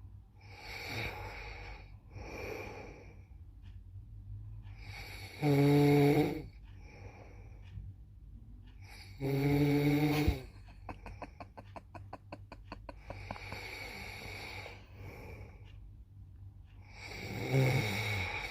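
A person snoring, the snores changing in character from breath to breath: soft breathy snores, two loud buzzing snores with a clear pitch about five and nine seconds in, a rattling flutter right after the second, and another loud snore near the end.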